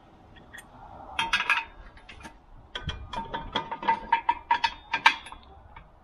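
Steel Speedco Cat 1 quick hitch clinking and clanking against a Branson tractor's lower three-point lift arms as it is lined up and hooked on. There is a short cluster of ringing clinks about a second in, then a quick run of knocks and rattles from about three seconds in to about five, the loudest near the end.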